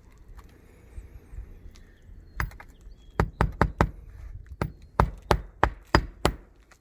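Hammer blows on a roof: about a dozen sharp strikes in quick runs, starting a couple of seconds in.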